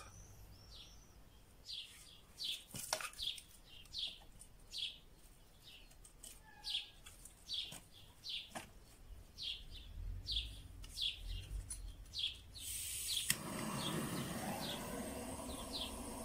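A small songbird chirping over and over: short, high, falling chirps about once a second. About thirteen seconds in, a steady hiss sets in under the chirps.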